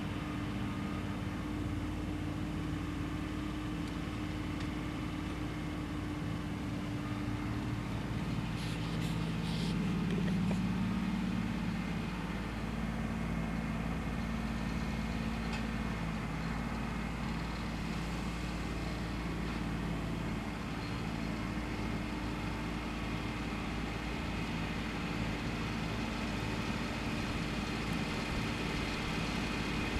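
Tractor engine running steadily; its note shifts and swells a little about eight to eleven seconds in.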